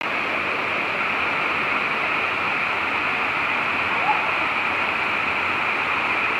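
Steady rush of Looking Glass Creek pouring down Sliding Rock Falls, a natural rock water slide, with a brief rising chirp about four seconds in.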